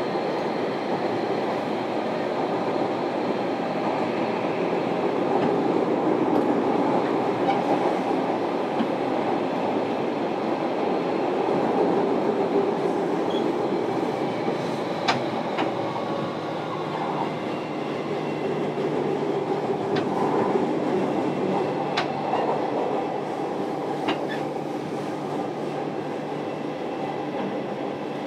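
Interior running noise of a JR Kyushu 305 series electric train, heard in motor car MoHa 305-101, which has Toshiba permanent-magnet synchronous traction motors: a steady rumble of wheels on rail with a few sharp clicks. A low steady hum comes in over the second half.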